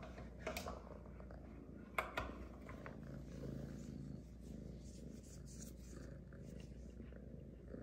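A kitten purring steadily, with a few sharp clicks about half a second and two seconds in.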